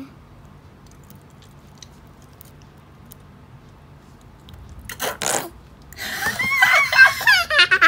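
Squeezable Goo Goo Galaxy toy sucking up sticky slime through its mouth: a short wet squelch about five seconds in, then from about six seconds a louder, wavering squelching noise, the slurp-and-burp sound the toy makes as it eats goo, likened to a fart.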